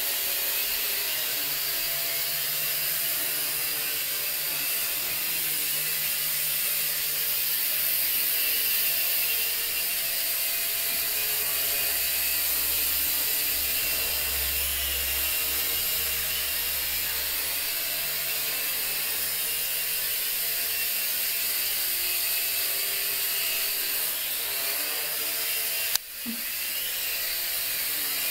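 J Perkins Twister micro quadcopter hovering: the steady, high-pitched buzzing whine of its small electric motors and propellers. Near the end there is one sudden knock, after which the sound dips briefly and then comes back.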